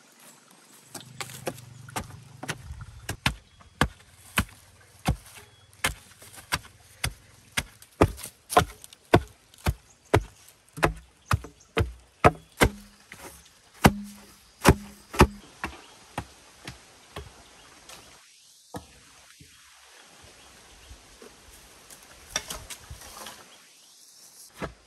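A hand tool striking bamboo in a steady series of blows, about two a second, that stop for several seconds before a brief flurry of strikes near the end.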